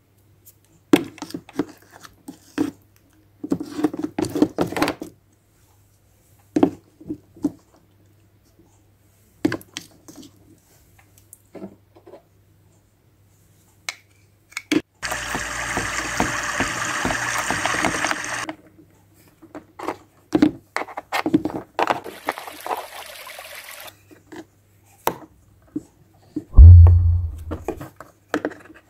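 Plastic toy kitchen pieces being handled: scattered clicks and knocks of pots, lids and utensils. About halfway in comes a few seconds of steady rushing, water-like noise, and near the end a single heavy low thump.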